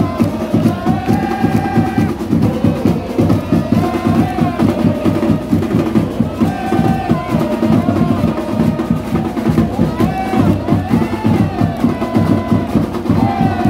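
Music with a steady, dense drumbeat under a held, sung or played melody.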